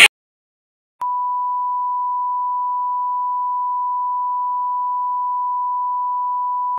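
A steady 1 kHz beep tone, a censor bleep edited into the soundtrack, starts about a second in after dead silence and cuts off abruptly almost six seconds later.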